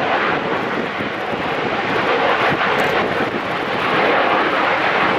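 Boeing 727's three rear-mounted Pratt & Whitney JT8D turbofans running at takeoff power as the jet rolls and rotates off the runway: a loud, steady jet roar that swells slightly near the end.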